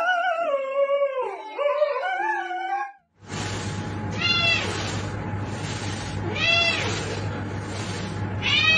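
A cat meowing three times, about two seconds apart, each call a short rise and fall in pitch, over a steady hum and hiss. Before a cut about three seconds in, a long wavering pitched animal or voice sound.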